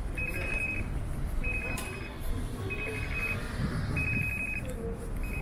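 Electronic warning signal: a high trilled tone, about half a second long, repeating roughly every 1.25 seconds over the low hum of street traffic.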